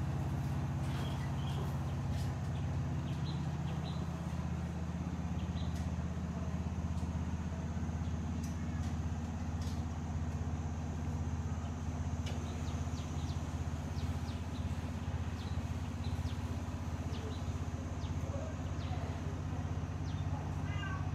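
A steady low mechanical hum, with scattered light clicks and knocks and a few faint high chirps.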